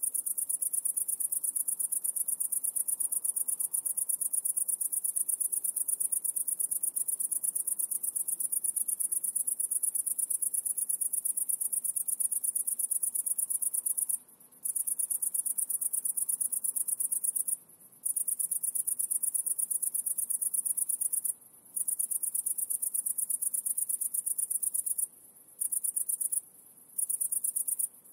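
High-pitched, very rapid pulsing trill like crickets chirring, breaking off for under a second about five times and resuming.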